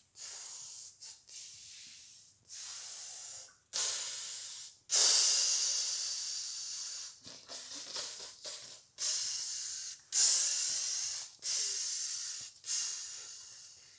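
A person's breathy sighs or exhalations, a long series of them, each starting sharply and fading away, the loudest about five seconds in.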